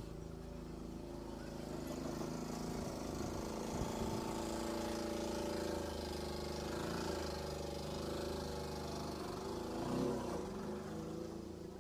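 A motor vehicle's engine running, growing louder over the first few seconds and fading toward the end, with a brief drop in pitch about ten seconds in.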